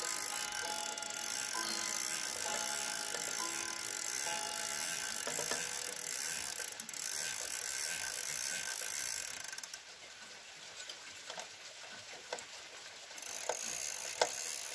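Winding crank raising the weights of a three-weight Vienna wall clock with grande sonnerie, its ratchet clicking. Over the first two-thirds, several ringing gong tones at different pitches hang over it. After that it drops to quieter, separate clicks, and the steady winding sound returns louder near the end.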